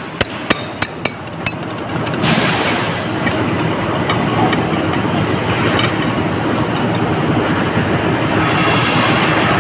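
About eight sharp metal clicks and taps of tools being handled on a gearbox in the first second and a half. Then a steady, loud rumbling noise with a hiss.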